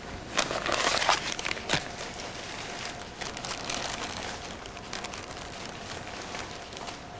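Crinkling and rustling as latex-gloved hands handle cloth, in a dense crackly burst for the first couple of seconds, then lighter scratchy rustles.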